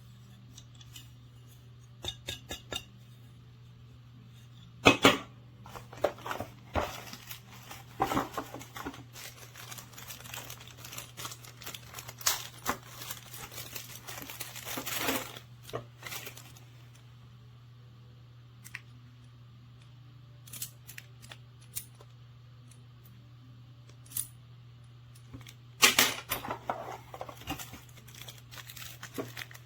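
Hands handling small camera hardware: irregular clicks, clinks and rustling, with the loudest clatters about five seconds in and again near the end, over a steady low hum.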